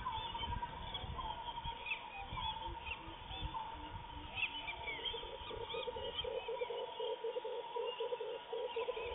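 Birds calling and chirping outdoors over a steady high drone. From about halfway, a repeated low pulsing call comes in at roughly two to three times a second.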